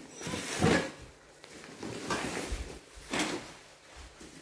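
Bubble-wrapped cardboard box being handled and shifted on a tiled floor: three separate scraping, rustling swishes, the loudest under a second in.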